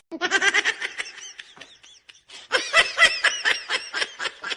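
High-pitched giggling laughter in quick pulses, in two bouts with a short pause between them.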